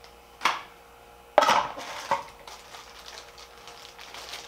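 Small bagged printer accessories being handled and set down on a desk: a light knock, then a sharper clatter about a second and a half in with a smaller one after it, followed by faint rustling of plastic packaging.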